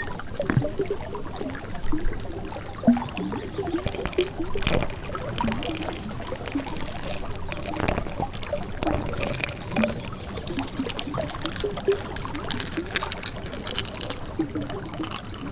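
Water trickling and gurgling continuously, with many small irregular bubbling blips.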